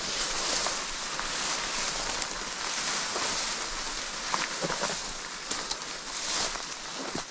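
Footsteps pushing through long grass and scrub: swishing rustles that swell and fade with each stride, with a few sharp snaps of twigs and leaf litter underfoot.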